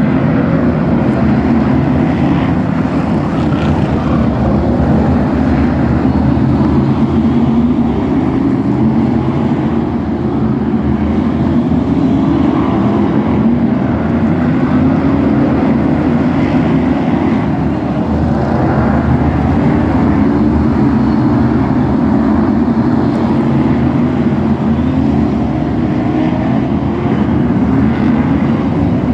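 A pack of F1 stock cars racing round a short oval, their engines running hard together, a continuous loud engine noise whose pitch keeps rising and falling as the cars lap.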